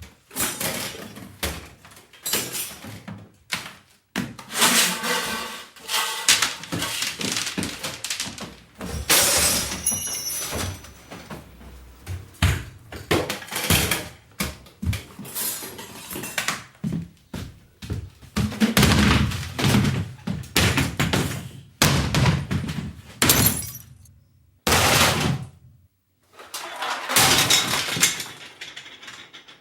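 A room being searched and ransacked: irregular thuds, knocks and clattering as objects are shoved, dropped and tossed about, in bursts with short pauses between.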